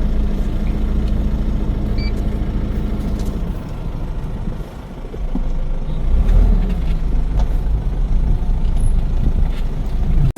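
Vehicle engine and road noise, a steady low rumble while driving up a steep hill; an engine hum fades about three and a half seconds in, the sound dips briefly around five seconds, then the rumble picks up again.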